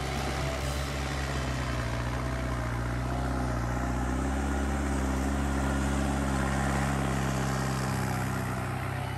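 New Holland 5630 tractor's diesel engine running steadily under load as it pulls a 19-tine cultivator through the soil, growing louder through the middle as it passes close.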